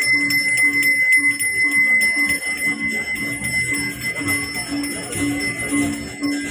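Balinese priest's brass hand bell (genta) rung continuously, a steady high ringing tone. Under it, music with an even beat of low notes about twice a second.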